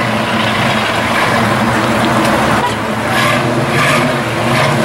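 Pontiac GTO's V8 engine running steadily as the car rolls slowly past at low speed.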